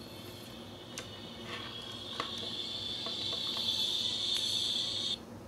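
Thin, high, steady hiss from the earphones of a mini clip MP3 player held close by. It grows louder and cuts off suddenly near the end, with a few small handling clicks from the player and its cable.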